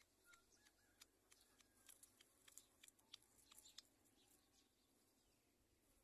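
Faint scattered clicks and crackles of twigs as black-winged kite chicks shift about in their stick nest, thickest over the first few seconds and then dying away. A few brief faint chirps come in the first second and again about two seconds in.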